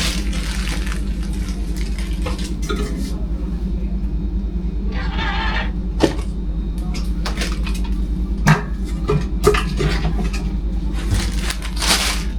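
Dishes and utensils clattering, with scattered sharp knocks, over a steady low machine hum.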